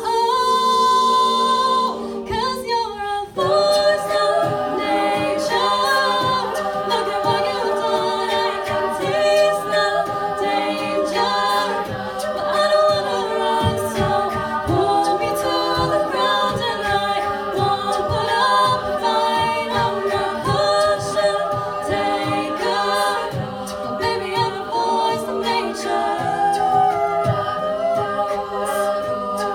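A women's a cappella group singing a pop song in close harmony, several voices holding chords under a lead line. The sound thins briefly about two seconds in, then comes back fuller, with a steady beat kept underneath.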